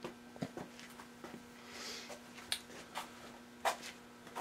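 Quiet workshop room tone: a steady low hum with a few scattered faint clicks and knocks, and a brief soft hiss about two seconds in.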